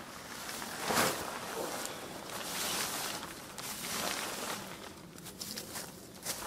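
Tarp fabric rustling and swishing as it is thrown over a hammock's ridgeline and tugged into place, in irregular swishes, the sharpest about a second in.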